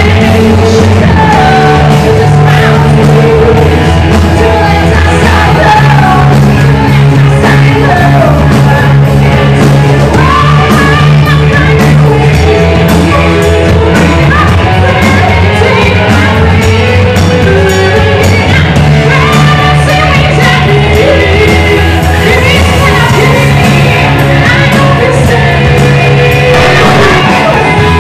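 Live band playing loud rock-style music with a singer, the bass holding long notes that change every couple of seconds, in a large hall.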